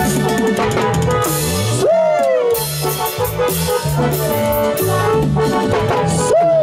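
Live dance-band music: a drum kit and a bouncing bass line under a lead melody that swoops up and slides back down in pitch a few times.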